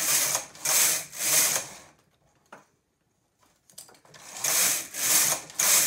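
Silver Reed knitting machine carriage pushed back and forth across the needle bed, knitting rows: each pass is a short sliding sound, three passes in quick succession, a pause of about two seconds, then three more.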